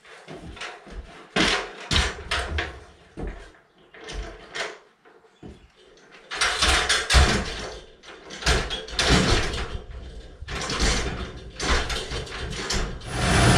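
Irregular knocks and clatter of boards and tools being handled at sawhorses inside a wood-framed cabin under construction. A steady running noise comes in near the end.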